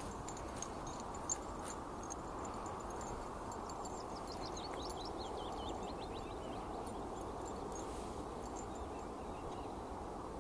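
Steady outdoor background noise with a few faint clicks early on, and a bird giving a quick run of high chirps a little before the middle.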